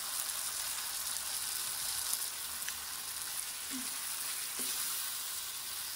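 Chicken korma for biryani sizzling steadily in a wok as it is stirred with a wooden spoon, being fried down uncovered in its own tomato-and-yogurt masala.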